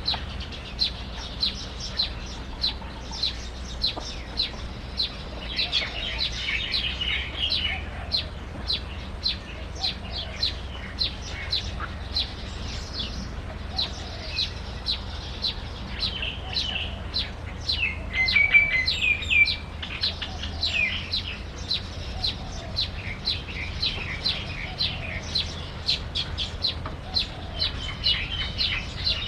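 Small birds chirping: short high chirps repeated about twice a second, with brief warbling phrases of song about six seconds in and again around eighteen seconds.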